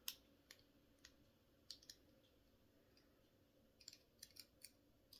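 About ten small, sharp, irregular metal clicks from a TCH 840 handcuff's lock as a pick works at its double-lock mechanism, the first the loudest and several close together near the end. The clicks are the pick catching the double lock and then slipping off.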